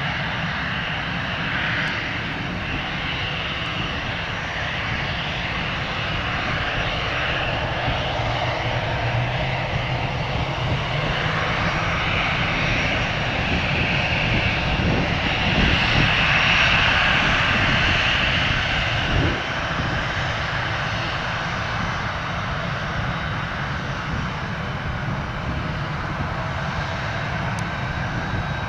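Airbus A320 jet engines running as the airliner taxis past: a steady jet whine over a low rumble. It grows louder toward the middle, peaking about 16 to 19 seconds in, then eases off.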